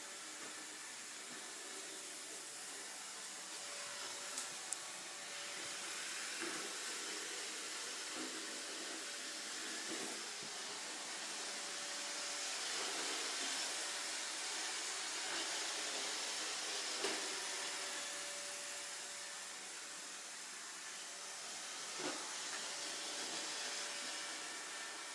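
iRobot Roomba robot vacuum running with a steady hissing whir and a faint hum, its level slowly rising and falling. A few sharp clicks come through, two close together about four seconds in and others later.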